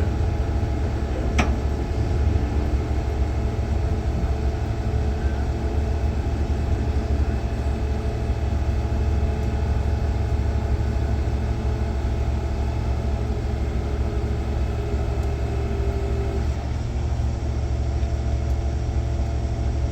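Heavy tow truck's diesel engine running with a steady low rumble, powering the winches on low speed under heavy load.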